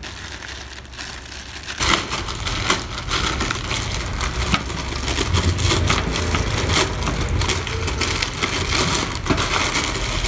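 Clear plastic bag crinkling and rustling in the hands as a coiled power cable is worked out of it, starting about two seconds in.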